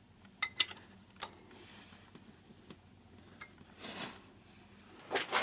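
Metal parts clinking as they are handled: a few sharp, irregularly spaced clicks, with a brief soft rustle about four seconds in.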